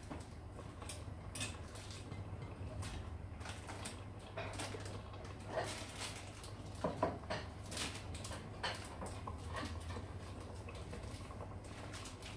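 Rummaging through pantry shelves: scattered small knocks, clinks and rustles of packets and containers being moved, with a cluster of sharper knocks around the middle, over a steady low hum.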